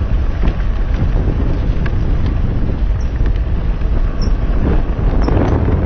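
Wind buffeting a helmet camera's microphone on a mountain bike ride over a dirt trail, a steady low rumble with scattered small clicks and rattles from the bike.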